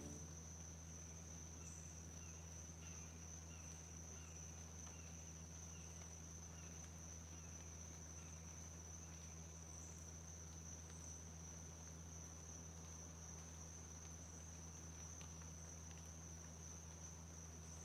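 Faint, steady high-pitched trill of insects, like a cricket chorus, over a low steady hum, with a few short, faint chirps during the first half.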